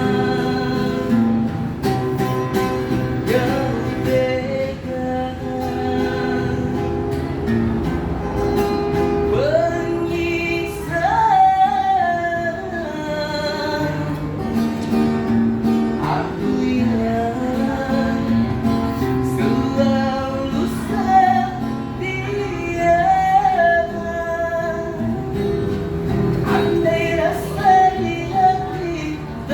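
A street busker singing a song with instrumental accompaniment, the voice sliding into and holding long notes over steady chords.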